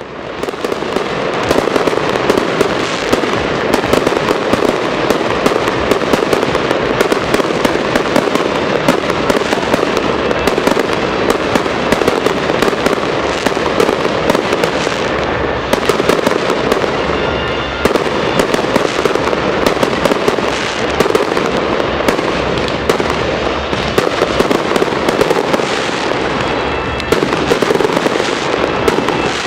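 Fireworks display: a dense, continuous barrage of bangs and crackles from aerial shells bursting overhead, fading in over the first second or two.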